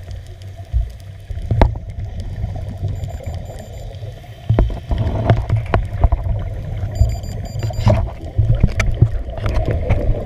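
Scuba diver's breathing heard through an underwater camera housing: regulator exhaust bubbles rumbling in long surges with each breath out, the loudest about halfway through and again near the end, with a few sharp clicks.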